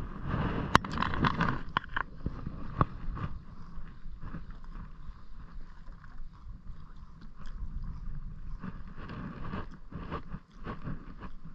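Water slapping against the hull of a small fishing boat, with wind buffeting the microphone and a spinning reel being wound in. A few sharp clicks sound in the first three seconds.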